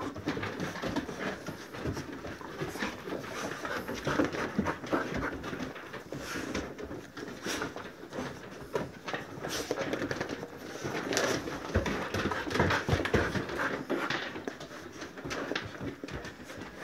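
Several excited dogs crowding in to be petted, panting and scuffling with many small clicks of claws and paws on a wooden plank floor.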